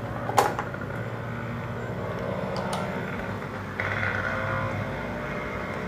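Yamaha X-Ride 115 scooter's single-cylinder engine idling steadily, with a sharp click about half a second in.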